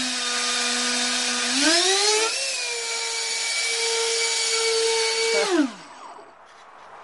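A pair of electric ducted fans on a model airplane run on their low-speed setting, giving a high whine over rushing air. The pitch steps up about two seconds in and holds, then the fans spin down and stop near the end.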